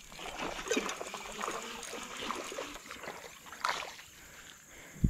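A hooked largemouth bass splashing in shallow creek water as it is pulled in to the bank, with scattered irregular splashes and a louder one about three and a half seconds in.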